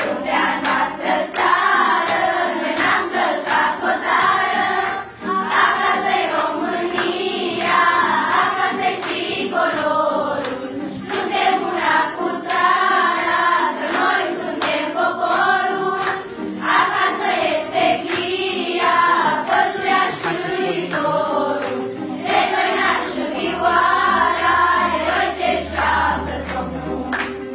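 A group of schoolchildren singing a song together in chorus.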